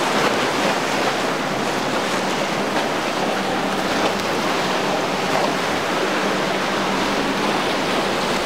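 Rough inlet water and breaking waves rushing steadily, with wind buffeting the microphone and the low, steady drone of a passing boat's outboard engine underneath.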